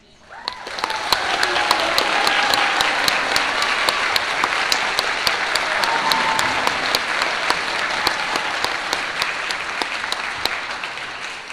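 Audience applauding, a dense patter of many hands clapping. It builds within the first second, holds steady, then tapers off near the end.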